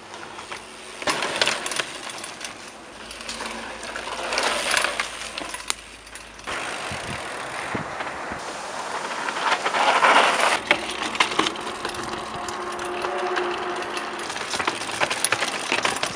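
Mountain bike being ridden hard over dirt and rock: tyres rolling and skidding, the bike rattling, and sharp knocks from rock hits and landings. The sound changes abruptly a few times, and a louder rush comes about ten seconds in.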